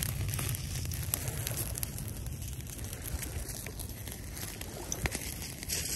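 Scattered small crackles and clicks over a low, steady outdoor rumble, as of dry litter being handled.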